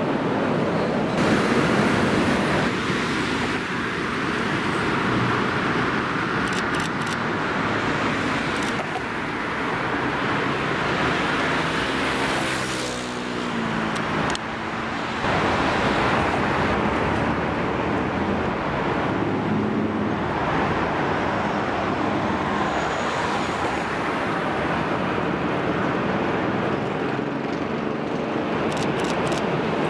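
Steady rumble of passing rail traffic mixed with road-traffic noise: a 15D diesel locomotive running light, then, after a cut about halfway through, an ET22 electric locomotive hauling loaded coal wagons.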